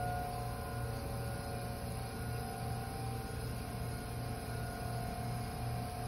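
Outdoor tornado warning sirens sounding a steady wail, heard as several held tones at slightly different pitches, over a low pulsing hum.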